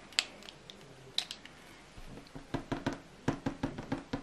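Kneadable putty eraser dabbed and pressed on hot-press watercolour paper: a sharp click right at the start and another about a second in, then a run of quick taps from about two and a half seconds in.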